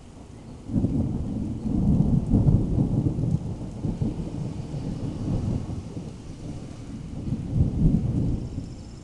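Thunder rumbling: a rolling peal starts about a second in, then swells again near the end before fading.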